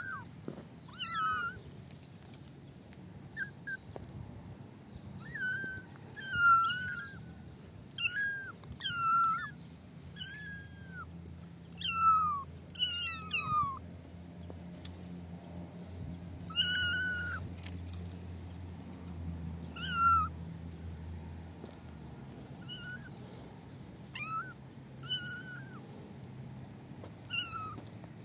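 Young kittens meowing over and over, short high-pitched calls that rise and fall in pitch, coming in quick runs with brief pauses between.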